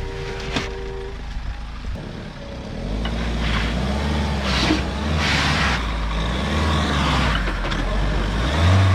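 Mahindra Thar SUV engine under load as it crawls over a rock ledge, the revs rising and falling unevenly. A short steady two-tone beep sounds in the first second.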